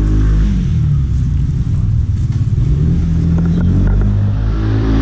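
Street traffic: engines of passing motor vehicles over a steady low rumble, their pitch slowly rising and falling as they speed up and go by, with a few light clicks in the middle.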